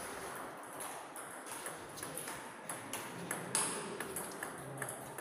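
Celluloid-style table tennis ball clicking off the table and paddles: scattered, irregular sharp pings, the loudest about three and a half seconds in, over a low background murmur.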